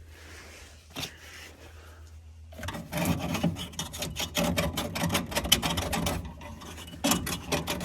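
Rapid scraping and rasping on metal, starting about two and a half seconds in and going on steadily: oil burner parts being scraped and handled while carbon deposits are cleaned off.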